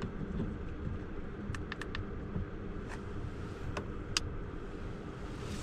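Steady low background rumble heard inside a parked car at night, with a few light clicks and rustles as the person lying in the bed moves.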